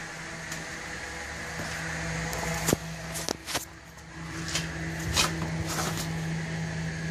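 5.3 L LS V8 in an Oldsmobile Cutlass idling steadily through a 2.5-inch exhaust with Flowmaster Super 44 mufflers, a constant low hum. A few sharp clicks and knocks come through in the middle as the camera is handled.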